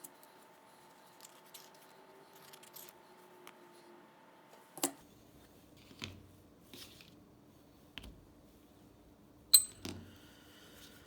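Small metal parts of a ratchet being handled and picked at while old grease is cleaned out: scattered light clicks and scrapes, with the sharpest click near the end.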